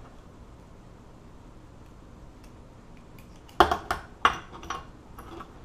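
Small metal parts of a cut-apart Master Lock four-wheel dial combination lock clinking as they are handled, a quick run of about five clinks starting a little past halfway through.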